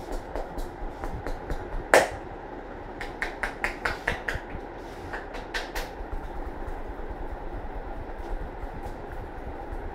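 Hands slapping and tapping on a head during a percussive head massage. One loud slap comes about two seconds in, then a quick run of about a dozen strikes, then softer rubbing for the rest.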